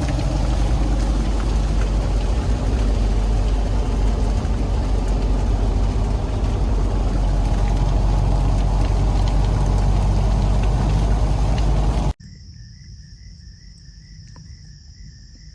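Loud steady rumbling and rushing noise with a low hum for about twelve seconds, then a sudden cut to a quiet night with insects chirping in a steady pulsing rhythm.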